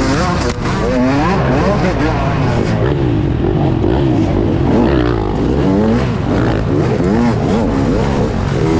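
Dirt bike engine revving up and down over and over, its pitch climbing and dropping every second or so.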